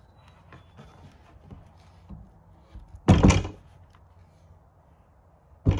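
A flat wooden fish carving is tipped and shifted by hand on a wooden workbench, with quiet scraping and small clicks, and one loud thunk about three seconds in as it drops onto the bench. A second, shorter knock comes near the end.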